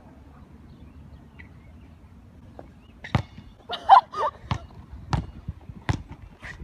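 A basketball bouncing on a hard outdoor court: about five dribbles, starting about three seconds in, at an uneven pace. A short high squeal cuts in among the first bounces.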